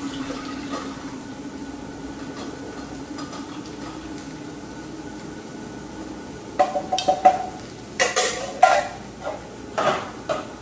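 Tin can clanking and scraping against a wire-mesh strainer as green beans are scraped out of the can with a spatula. A run of sharp metal clatters with short ringing starts past the middle, over a steady low hum.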